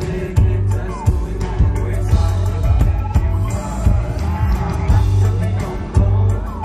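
Live band music with a steady drum beat and sustained bass notes, with a male singer's voice over it.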